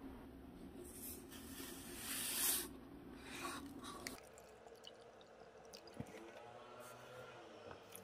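White sugar poured from a paper cup into a plastic container, a soft sandy hiss loudest about two and a half seconds in. After that, a faint trickle of vinegar being poured from a bottle into a paper cup.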